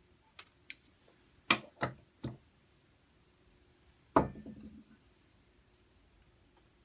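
A handful of light clicks and knocks from small hand tools being picked up, set down and worked against the CB radio's circuit board and metal chassis. About four seconds in there is one louder knock with a brief rattle.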